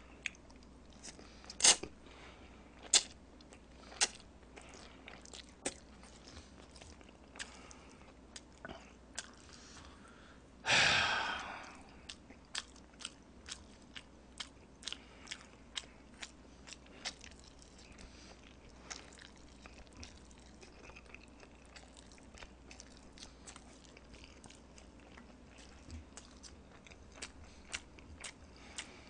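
Close-miked chewing of soft instant black-bean noodles (Chapagetti): wet mouth clicks and smacks at an uneven pace. About eleven seconds in comes one louder noisy rush lasting about a second.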